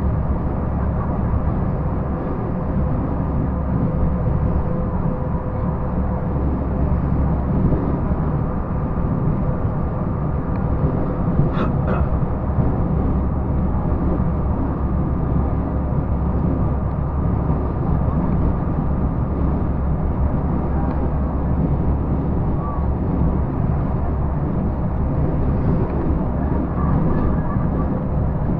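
Volvo truck's diesel engine and road noise droning steadily inside the cab while cruising on the highway. A brief high-pitched sound cuts in about twelve seconds in.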